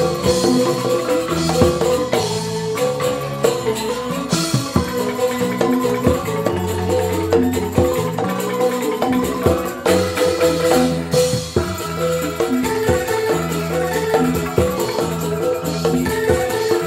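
Joged bumbung gamelan music: bamboo xylophones playing fast repeating patterns of short notes, with percussion strikes and rattling.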